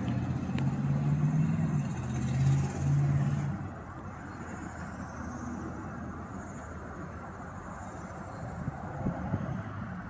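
Rumble of a Norfolk Southern intermodal freight train going away after passing, with a low hum, dropping away about three and a half seconds in to a steady faint rumble.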